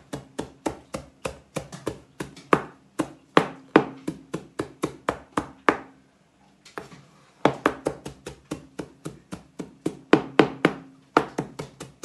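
Chef's knife chopping parsley on a plastic cutting board: quick sharp knocks of the blade on the board, about four a second, breaking off for a moment about halfway through and briefly again near the end.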